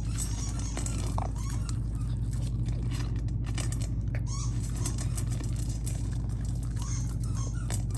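A Rottweiler puppy eating dry kibble from a stainless steel bowl: rapid, irregular crunching and the clicking of kibble against the metal bowl, over a steady low hum.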